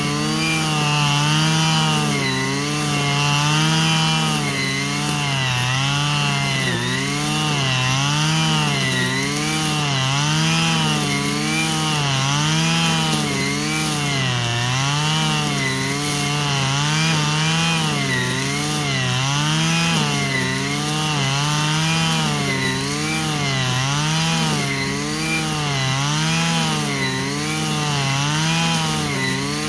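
Stihl FS 120 brush cutter's small two-stroke engine running steadily at a mid speed, its pitch rising and falling about once a second.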